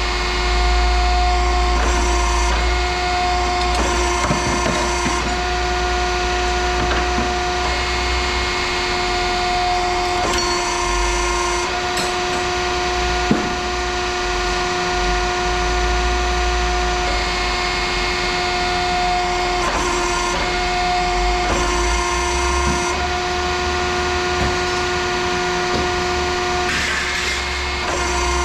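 A machine running steadily with a strong, even hum, a low rumble that drops in and out, and occasional clicks and knocks.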